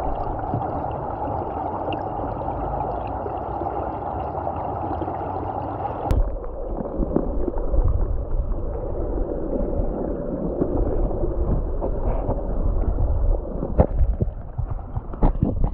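Gurgling, rushing water heard through a camera held in the water. About six seconds in the sound changes suddenly at a click and turns lower and rougher, with scattered knocks.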